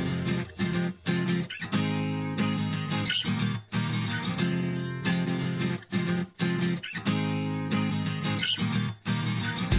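Background music led by a strummed guitar with a steady rhythm.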